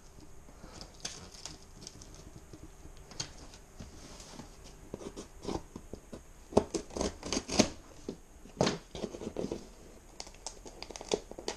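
Scissors cutting and scraping along the packing tape of a cardboard box: a run of short snips, scratches and cardboard knocks, quiet at first and busiest in the middle. Near the end, fingers pick at the tape.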